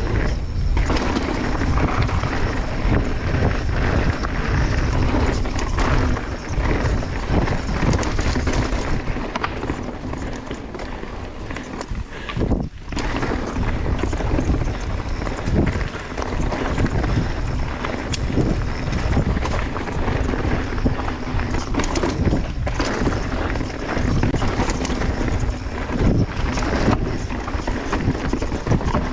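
Wind buffeting the ride camera's microphone as a mountain bike descends a rocky trail, with the tyres rolling over rock and the bike rattling through many short knocks from rock hits.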